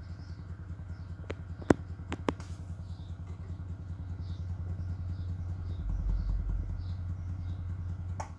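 MUTANT subwoofer playing deep bass, a steady low buzzing rumble with a few sharp clicks between about one and a half and two and a half seconds in. The bass gets deeper and stronger around six seconds in, then cuts off suddenly at the end.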